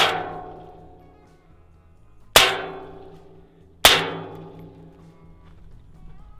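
Three suppressed rifle shots from a Palmetto State Armory KS47 7.62×39 fitted with an AAC 762SD suppressor: one right at the start, one about 2.4 seconds later and one about 1.5 seconds after that. Each is a sharp crack that dies away over about a second.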